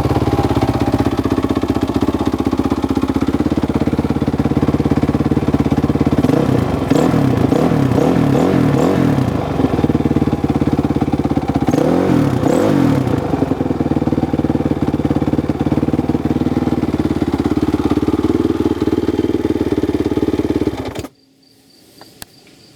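2007 Honda CRF450R's 450 cc single-cylinder four-stroke engine idling, blipped through a quick run of revs about six seconds in and a few more about twelve seconds in, then settling back to idle. It stops abruptly about two seconds before the end.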